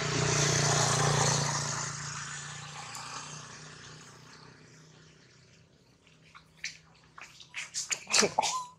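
A vehicle passing on the road, its rushing noise loudest in the first two seconds and fading away over the next few, over a steady low hum. Near the end come several short, sharp sounds.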